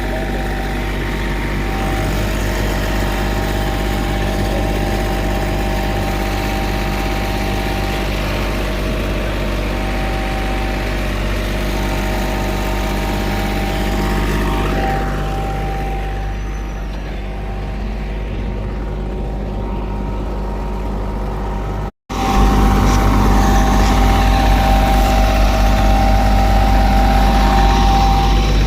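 Diesel engines of asphalt paving machinery running steadily in a continuous drone. The sound cuts out for an instant about three-quarters of the way through and comes back a little louder.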